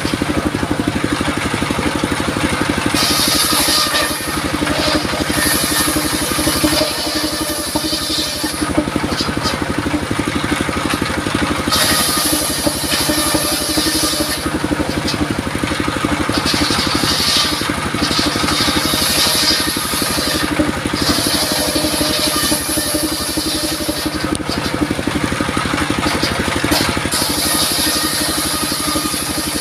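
Engine-driven circular sawmill running steadily, with a stretch of high-pitched blade noise every few seconds as the blade cuts through durian wood.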